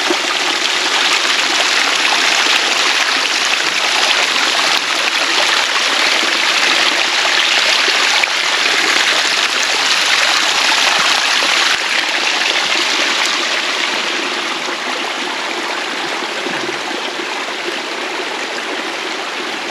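Storm runoff flowing steadily through a dug drainage ditch after heavy rain, a continuous rush of water that eases slightly after about fourteen seconds.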